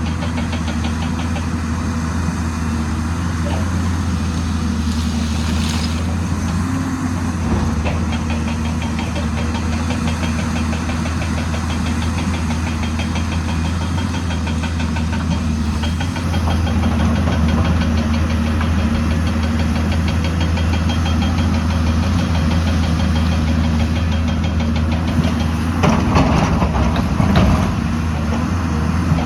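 Excavator's diesel engine running steadily, getting a little louder about halfway through, with a few clanks near the end.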